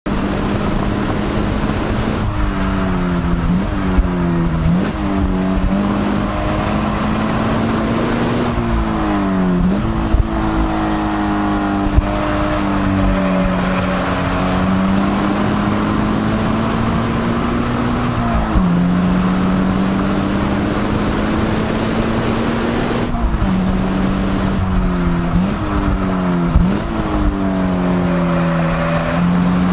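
Scion FR-S's 2.0-litre flat-four engine running at high revs, heard from inside the cabin over wind and road noise. Several times the engine note drops and jumps in short steps as the car brakes and downshifts, then climbs steadily again under acceleration.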